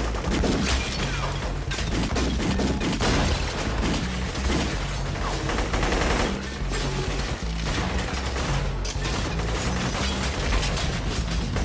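Rapid, dense gunfire from pistols and submachine guns, over music with a heavy low beat.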